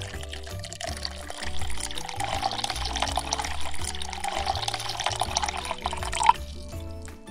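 Thin stream of water from a miniature kitchen faucet splashing onto strawberries in a small sink as they are rinsed, cutting off suddenly about six seconds in. Background music plays underneath.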